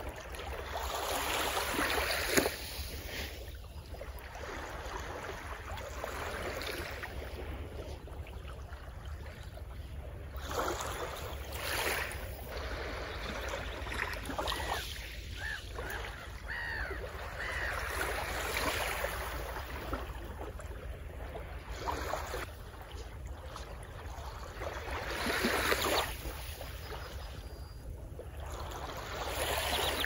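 Small waves lapping and washing onto a sandy shore, the hiss swelling and easing every few seconds.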